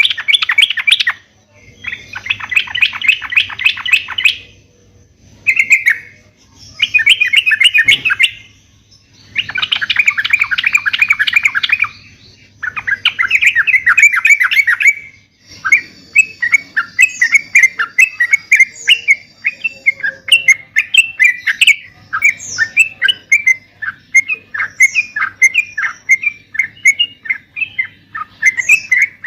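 Yellow-vented bulbul (trucuk) singing loudly: a string of short phrases of rapid chattering notes with brief gaps between them, then from about halfway a continuous run of short bubbly notes.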